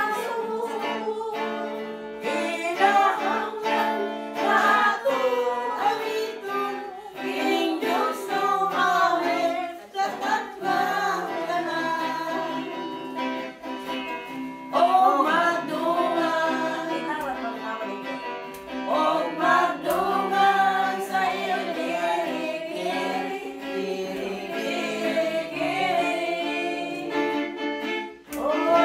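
Several voices singing a song together to guitar accompaniment.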